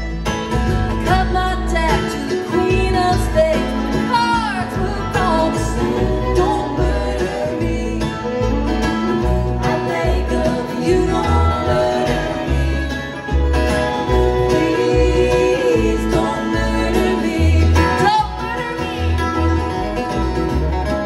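Live bluegrass band playing: a woman sings the lead over a strummed acoustic guitar and a banjo, with a steady low beat underneath.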